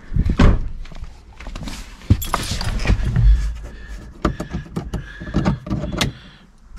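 Handling noise inside a car: a run of knocks and low thumps with some rustling, as things are moved about.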